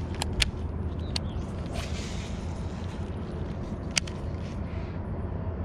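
Steady low rumble with a few light, sharp clicks from a baitcasting reel being handled while a lure is worked: two just after the start and one about four seconds in.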